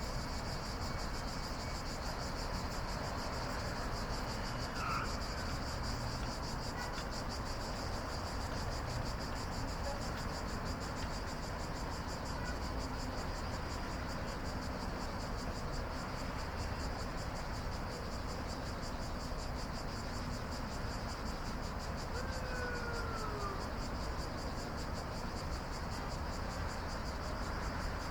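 Night insect chorus: a steady, high, rapidly pulsing trill over a low, even background rumble. A faint falling call sounds about three quarters of the way through.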